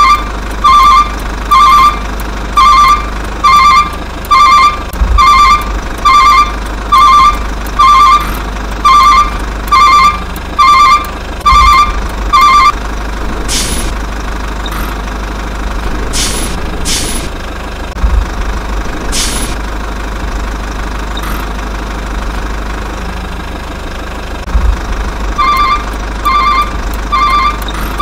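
Truck sound effect: a reversing alarm beeping a little faster than once a second over a low engine rumble. The beeping stops about halfway through, leaving the engine running with a few short hisses, and starts again near the end.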